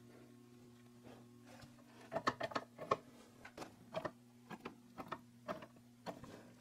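Irregular light metallic clinks and taps as a bearing separator is fitted and tightened around a differential carrier's bearing, starting about two seconds in, over a steady low hum.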